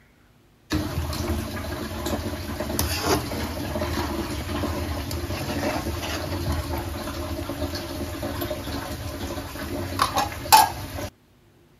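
Butter bubbling and frothing in a kadhai as it is rendered into ghee, with a metal ladle stirring and scraping through it. A few sharp metal clinks come near the end, the last one the loudest.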